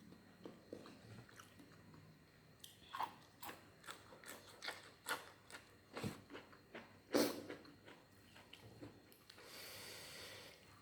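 A person biting and chewing crunchy food, a run of crisp crunches about twice a second, the loudest about seven seconds in.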